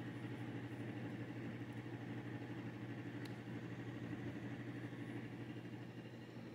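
A steady low mechanical hum, like a motor running, holding one pitch throughout, with a faint click about three seconds in.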